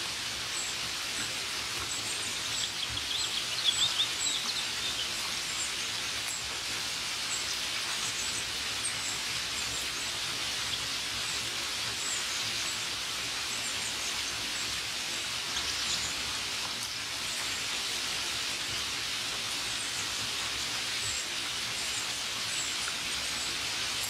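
Steady rain falling, with birds calling over it: a short high chirp repeated over and over, and a brief, louder burst of song about three to four seconds in.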